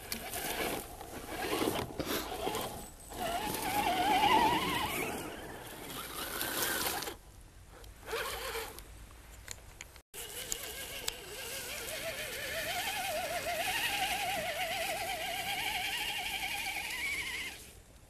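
Electric motor and gearbox of a radio-controlled scale crawler truck whining. The pitch rises and falls with the throttle, with short pauses where it stops.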